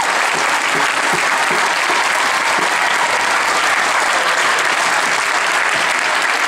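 Large audience applauding, many hands clapping at a steady level.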